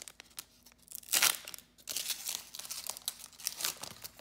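Foil wrapper of a sports trading-card pack being torn open and crinkled in the hands, with the loudest crackle about a second in.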